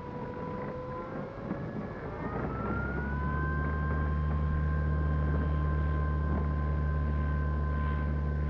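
Small RC plane's motor and propeller running with a whine that rises in pitch over the first few seconds, then holds steady and louder with a low hum underneath.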